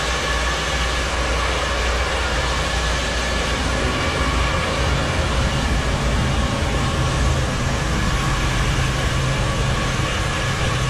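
Handheld hair dryer running steadily, blowing on a customer's hair: a loud, even rush of air over a low motor hum.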